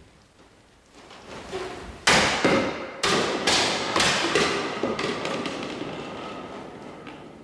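A katana cuts a tall bamboo target pole, and the cut sections fall and clatter on the wooden dojo floor: a run of sharp knocks, about two a second, that fade away over several seconds.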